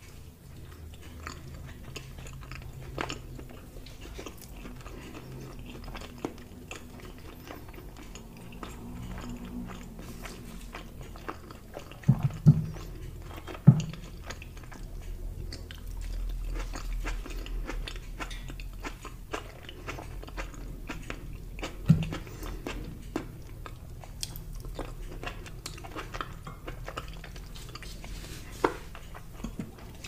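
Close-miked chewing and biting of food from a plate of grilled lamb ribs, tomato slices and tzatziki: steady wet, crackly chewing, with a few sharper, louder bites or knocks about twelve, fourteen and twenty-two seconds in.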